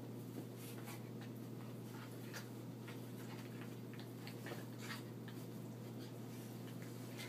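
Small dogs play-wrestling on carpet: irregular light scuffs, scratches and clicks from their paws and claws, over a steady low hum.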